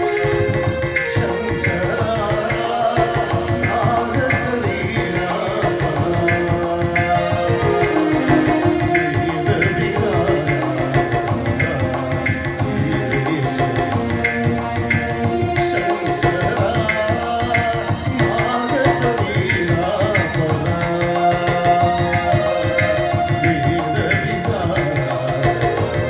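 A devotional bhajan: male voices singing a melody, accompanied by a steady percussion beat.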